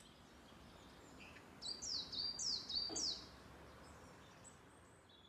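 Small songbird singing in woodland: a phrase of three high notes, each sliding downward, about half a second apart near the middle, with a few fainter chirps around it. Under it runs a faint, steady outdoor background noise.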